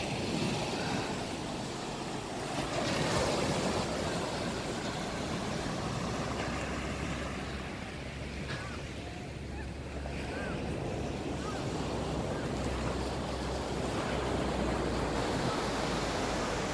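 Small waves breaking and washing up on a sandy beach, a steady rushing surf that swells and eases, with wind rumbling on the microphone.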